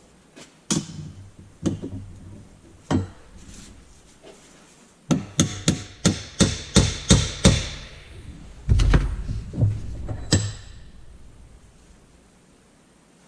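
Hammer blows tapping a metal end piece into a tube: three single strikes, then a quick run of about ten, then a few more. Each strike rings briefly.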